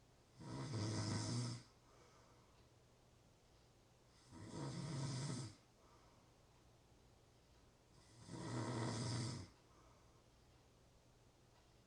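Snoring: three low, buzzing snores at an even pace of about one every four seconds, each lasting a little over a second.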